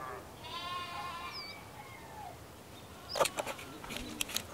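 A farm animal bleats once, a wavering call about a second long, near the start. From about three seconds in come sharp knocks of a wavy-bladed crinkle cutter chopping raw potato into fries on a plastic cutting board, the first knock the loudest.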